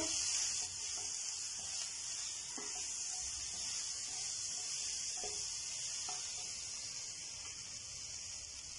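Diced chicken, onion and tomato sizzling in a nonstick frying pan over high heat as a wooden spatula stirs them, a steady hiss with a few light knocks of the spatula on the pan. The sizzle fades a little near the end.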